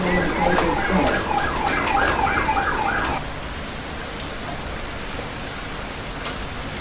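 Steady heavy rain. For the first three seconds a series of about nine quick rising-and-falling high calls sounds over it, coming faster toward the end and then stopping abruptly.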